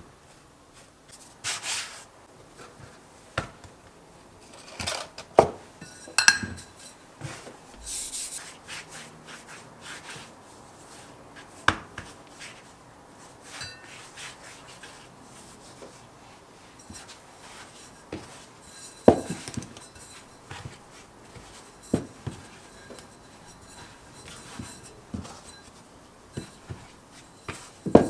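Hands rubbing and rolling salt-bread dough on a floured silicone baking mat, broken by scattered sharp knocks and taps. A metal rolling pin rolls over the dough near the end.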